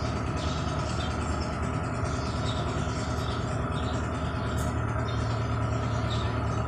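A steady low hum with an even background hiss.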